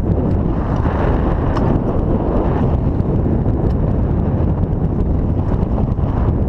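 Wind buffeting an action camera's microphone: a loud, steady, low rumbling noise without any pitch, with a few faint ticks.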